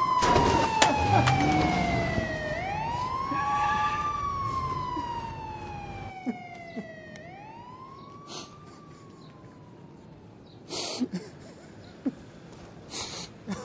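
Police car siren wailing, each sweep rising quickly and falling slowly, loud at first and fading away after about seven seconds. A few short noises come near the end.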